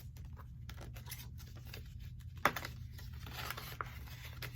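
Paper banknotes and envelopes rustling and crinkling as cash is counted and stuffed into envelopes, with one sharper snap about halfway through.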